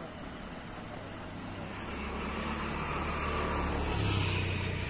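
Engine of a road vehicle drawing near: a low, steady drone that grows louder over about four seconds, then eases off near the end.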